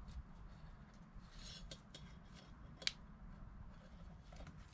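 Faint rubbing and small clicks of a crimped metal terminal pin being pushed by hand into a plastic MAP sensor connector housing, with one sharp click about three seconds in.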